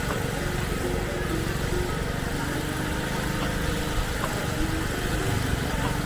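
A small engine running steadily at idle, a continuous low rumble.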